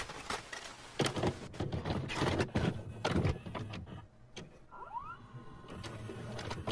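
Sound effect of a VCR loading and playing a videotape: a click, then clunks and whirring from the tape mechanism, a short rising whine about five seconds in, and a faint steady hum.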